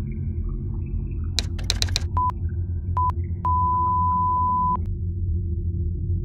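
Sound-effect track: a quick run of typewriter-style key clicks, then a hospital patient monitor beeping twice and going into a long, steady flatline tone that cuts off suddenly, all over a low droning rumble.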